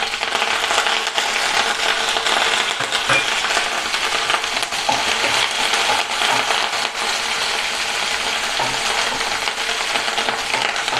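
Chopped onions and fresh curry leaves sizzling in hot ghee in a non-stick kadai, with a steady hiss and many small crackles and pops, as a wooden spatula stirs them.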